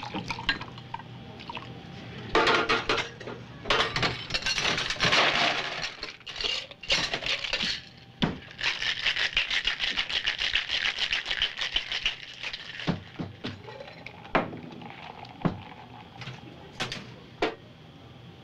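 A whiskey sour being mixed: pouring into a glass, then several seconds of ice rattling in a cocktail shaker, followed by scattered clinks and knocks of glass and metal set down on the bar.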